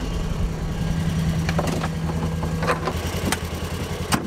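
Side-by-side UTV engine idling steadily. Over the hum come a few sharp clicks and knocks, the loudest near the end, as the vehicle's door is handled and someone climbs in.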